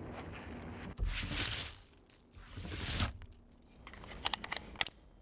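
Rustling and crinkling of clothing and gear being handled, then a quick run of small sharp clicks from working a rifle's magazine.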